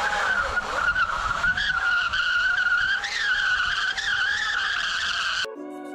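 Rear tire of a Sur-Ron electric dirt bike spinning on concrete in a burnout, a steady high-pitched squeal that wavers slightly in pitch. It cuts off suddenly near the end and music takes over.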